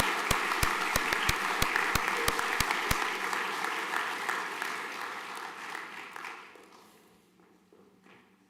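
Audience applauding in a large hall, with one nearby pair of hands clapping sharply about three times a second for the first three seconds. The applause dies away around six to seven seconds in.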